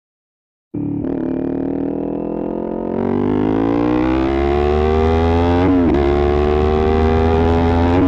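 Kawasaki Z400's 399cc parallel-twin engine, breathing through a slip-on aftermarket muffler, pulling under acceleration. It cuts in under a second in, and its pitch climbs steadily, with a brief wobble in pitch about six seconds in before it rises again.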